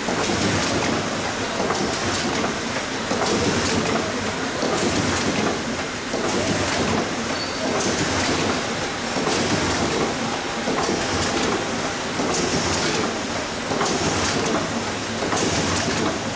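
SZD-106 automatic three-colour UV screen printing machine running: a steady mechanical clatter that swells in a cycle about every one and a half seconds as the rotary table indexes and the print heads stroke.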